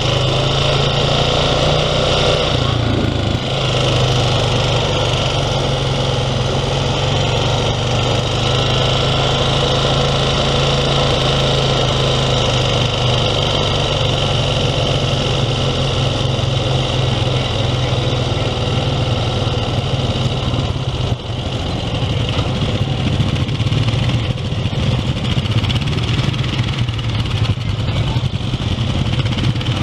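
ATV engine running at low speed with a steady drone, easing off briefly about two-thirds of the way through.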